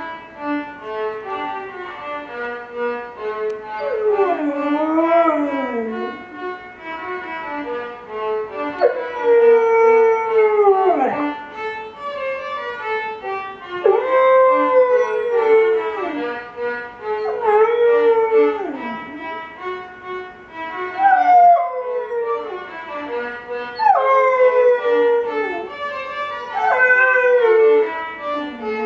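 Six-month-old golden retriever puppy howling along to violin music: about seven long howls, each sliding down in pitch at its end.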